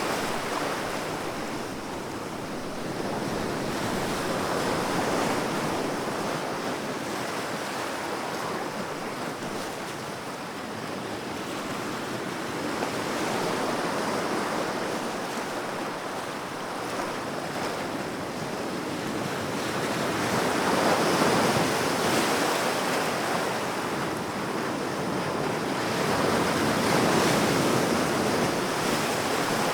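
Calm sea waves washing onto a beach, the surf swelling and easing back every several seconds, with the biggest surges about a third of the way in and twice near the end.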